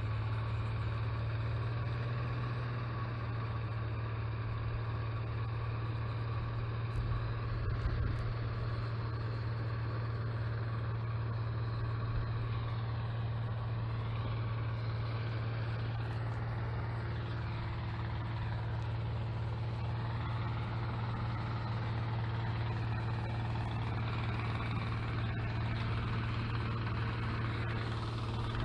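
Engine of a swather converted into a snowblower, running as a steady low drone while the machine blows snow, with a brief knock about eight seconds in.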